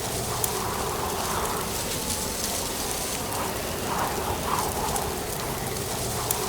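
Steady rustling ambience of autumn wind through dry leaves, with soft swells and a few light ticks.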